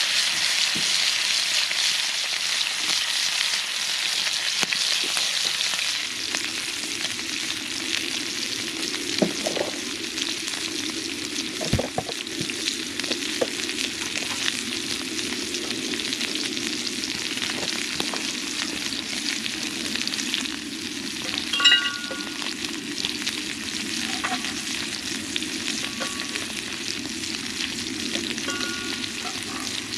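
Food sizzling and frying in a skillet, a steady hiss with a few knocks, and a low steady hum coming in about six seconds in.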